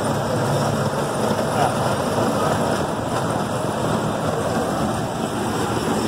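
Chance C.P. Huntington miniature park train running along its narrow-gauge track, heard from aboard: a steady mix of engine and wheel-on-rail running noise.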